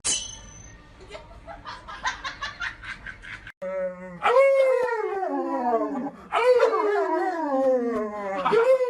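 Dog howling in long calls that slide down in pitch, three in a row starting about four seconds in, after a few seconds of faint rapid clicking.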